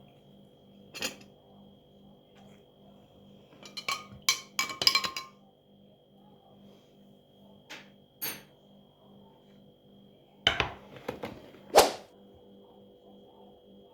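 Crockery being handled: a few sharp clinks and knocks of cups or dishes being set down, with a quick ringing cluster about four seconds in and two heavier knocks near the end. Soft background music plays faintly throughout.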